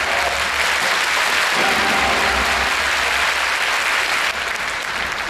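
Audience applauding: dense, steady clapping that drops slightly in level near the end.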